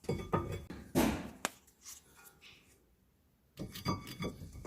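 Scattered clicks, knocks and a short swish of hand tools and brake parts being handled while brake pads are fitted into a caliper, with a second of near quiet before more knocking near the end.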